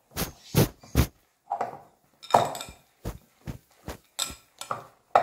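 Glass mixing bowl knocking and clinking as banana dough is mixed by hand in it, in irregular strokes about two a second.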